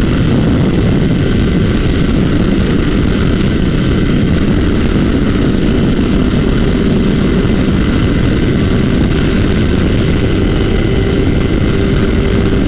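Sport motorcycle running flat out in sixth gear at about 245–250 km/h: a steady engine note under heavy, even wind rush.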